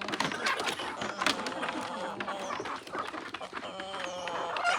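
Chickens clucking, with many short clicks and taps throughout and a longer pitched call near the end.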